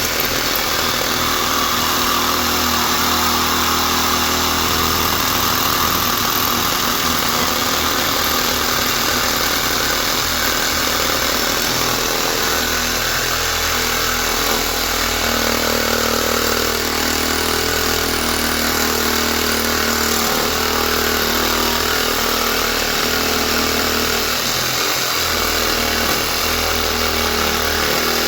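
Reciprocating saw (Sawzall) running steadily as it cuts through a large electric motor's housing and windings.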